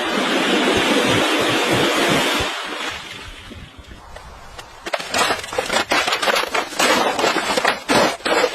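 A steady hiss for about three seconds, then a quieter stretch. From about five seconds in come rapid, irregular scraping and knocking strokes, the sound of hand work on a building material.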